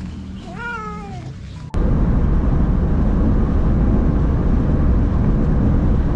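A cat in a plastic pet carrier meows once, a single call that rises and then falls, under a second long. About two seconds in, a louder steady rumble of road and engine noise inside a moving car starts suddenly and carries on.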